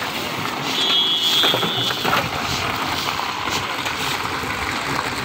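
Crushed ice flung from plastic baskets, showering and clattering onto the asphalt road, over the steady noise of a running vehicle engine.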